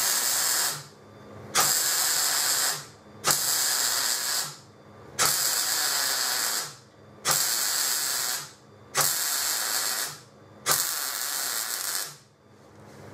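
MIG welder arc crackling and sizzling in seven short welds of about a second each, one every two seconds or so, each striking up sharply: stitch-welding the internal joints of a steel box-section frame.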